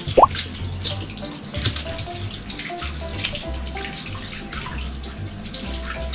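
Water running from a kitchen tap into the sink, under background music with a steady bass beat and short melody notes. A short, loud rising whistle sounds about a quarter second in.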